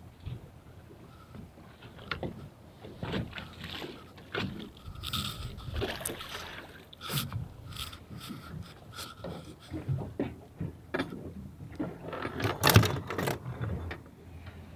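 Water slapping against a small boat's hull, with irregular knocks, clicks and scrapes as a landing net and a caught fish are hauled aboard; the loudest knocks bunch up about 13 seconds in.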